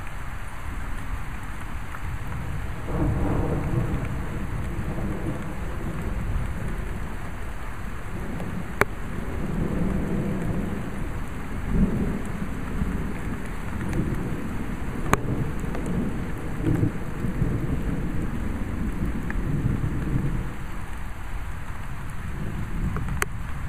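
Steady rain during a thunderstorm, with a long roll of thunder that rumbles and swells from about three seconds in until near the end. A few sharp ticks stand out over the rain.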